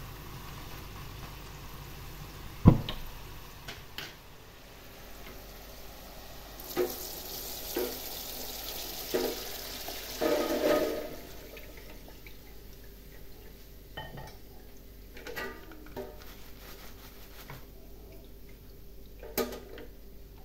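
Pan and utensil clatter, with one sharp knock about three seconds in. Then, from about seven to eleven seconds in, a pouring hiss broken by knocks as freshly fried potato chips and their hot oil are tipped from the pan into a wire fryer basket to drain. A few light knocks follow.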